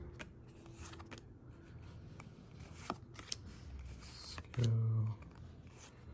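Pokémon trading cards being slid and flicked from one hand to the other, a run of light clicks and card-on-card swishes. A short low vocal murmur about two-thirds of the way through is the loudest sound.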